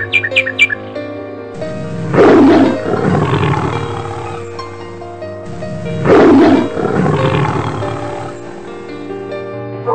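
A tiger roaring twice, about four seconds apart. Each roar is loudest near its start and trails off over a few seconds. Background music plays underneath.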